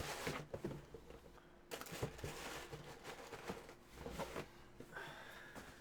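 Shoe boxes and their packing being handled: rustling and crinkling with scattered light knocks.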